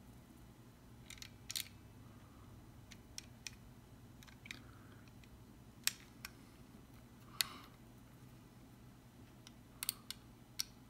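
Small, sharp plastic clicks and taps at irregular moments, about a dozen in all, as a power adapter plug is worked into the tiny port inside a first-generation Arlo camera's battery compartment, over a faint steady hum.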